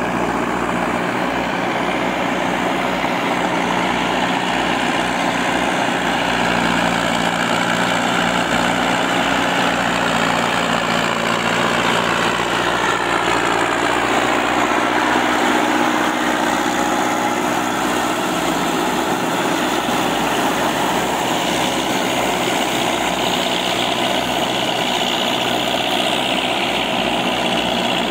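Diesel farm tractors running steadily under load while pulling rotary tillers through wet paddy mud; a Massey Ferguson 185 passes close midway and its engine note falls as it goes by.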